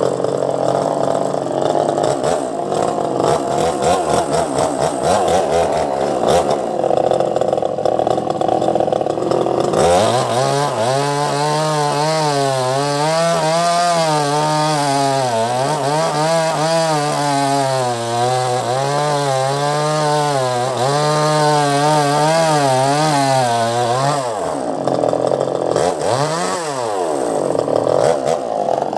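Two-stroke chainsaw at full throttle, ripping lengthwise through a rambutan log. Through the middle stretch the engine note drops and wavers up and down as the chain bites into the wood, then rises again near the end.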